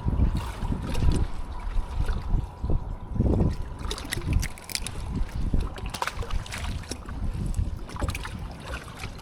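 Wind gusting against the microphone on an open boat, with water lapping at the hull, a faint steady high tone, and a few light clicks.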